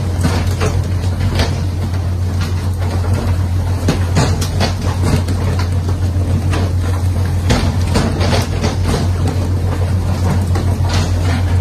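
Boat engine running with a steady low drone, with irregular knocks and clatter over it.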